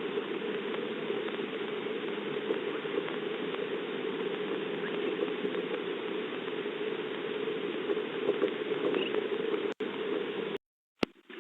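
Steady rain pattering, heard through a Ring camera's narrow-band microphone, cutting out to silence near the end.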